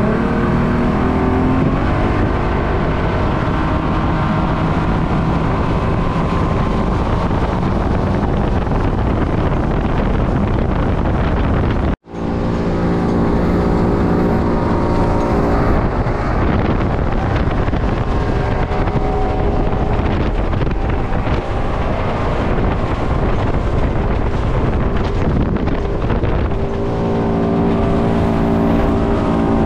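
V6 outboard motor running steadily at speed as the boat planes, mixed with wind rushing over the microphone and the hiss of water off the hull. The sound cuts out for an instant about twelve seconds in, then carries on.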